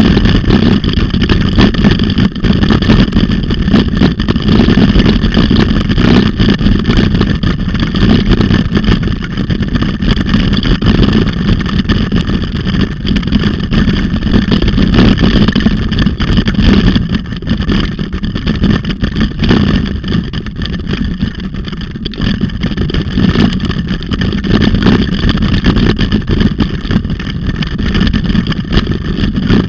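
Steady, loud rush of wind buffeting the microphone together with rolling rumble from a handlebar-mounted camera on a dog-pulled rig moving fast over a paved road.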